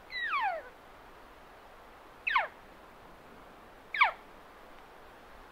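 Elk calling: three short, high calls that each slide steeply down in pitch, about two seconds apart, the first the longest.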